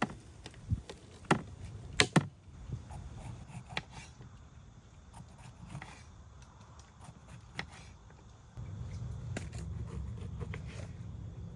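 Several sharp knocks and clicks of hard objects being handled, three loud ones in the first two seconds and lighter ones after. About three-quarters through, a steady low rumble sets in.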